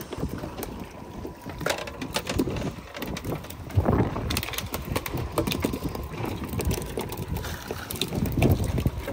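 Wind buffeting the microphone aboard a fishing boat, with scattered light taps and knocks.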